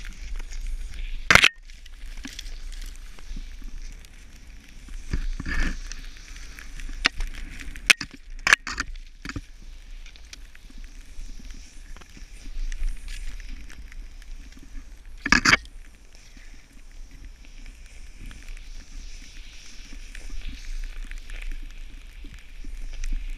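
Snowboard sliding and carving through deep powder snow with a steady hiss, and wind rumbling on the camera microphone. A few sharp knocks stand out, the loudest about a second and a half in and again about fifteen seconds in.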